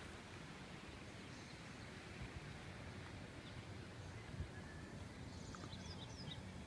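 Faint outdoor ambience: a low, steady rumble with a couple of soft thumps, and a few short, high bird chirps near the end.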